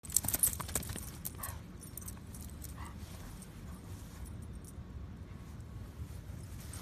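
Metal tags on a dog's collar jingling as the dog moves about carrying a toy, loudest and busiest in the first second, then lighter and scattered, over a steady low rumble.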